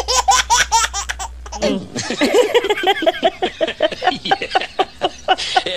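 Hearty human laughter, high-pitched: a rapid run of short laughs in the first second or so, then a longer stretch of quick, continuous laughing.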